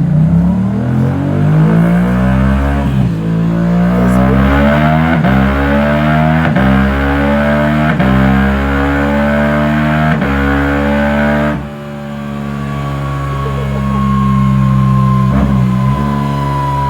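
Yamaha R7 motorcycle engine revving hard several times, its pitch climbing and dropping back again and again. About two thirds through it settles into a steady drone.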